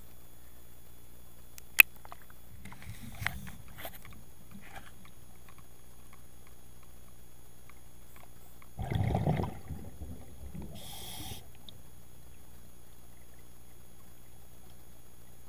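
Underwater recording of a scuba diver's exhaled breath: about nine seconds in, a burst of bubbling lasting about a second, the loudest sound, then a brief high hiss. Underneath runs a steady low hum, and a sharp click comes about two seconds in.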